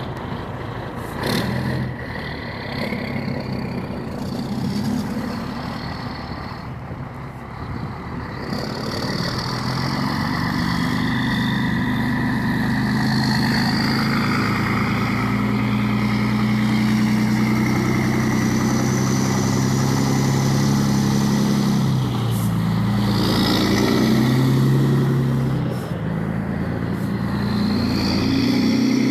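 Scania 143 truck's V8 diesel engine rumbling, its revs climbing after the first few seconds and holding high, with short drops in revs about three-quarters of the way through and again a few seconds later.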